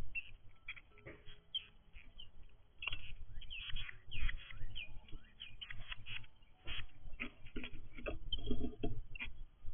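Small birds at a feeder: irregular short chirps mixed with scratchy taps and scuffles, busier from about three seconds in.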